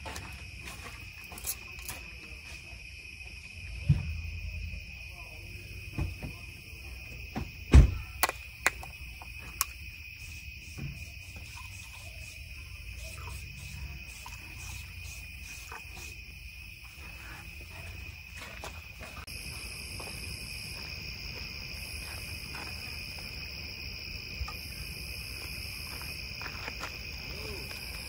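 Steady trilling of a night insect chorus, with a second, higher insect call joining about two-thirds through in on-off pulses. In the first ten seconds, knocks and clinks of bottles and cups being handled and set down, the loudest about eight seconds in.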